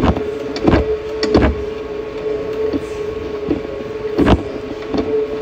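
Stationary exercise bike being pedalled: a steady mid-pitched whine from the flywheel, with short knocks coming at an uneven pace of roughly one every half-second to second.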